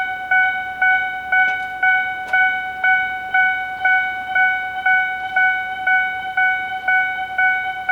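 Japanese railway level-crossing alarm ringing at an even pace of about two strokes a second, each stroke a single steady, calm-sounding bell-like tone.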